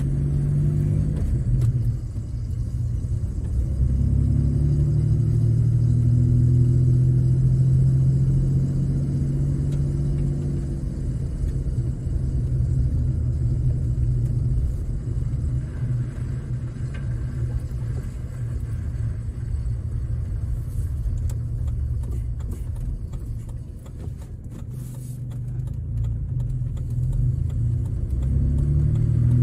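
Gasoline Ford Ranger pickup being driven, heard from inside the cab: a steady low engine hum with road noise. The engine note is strongest in the first third, eases off through the middle, and builds again near the end.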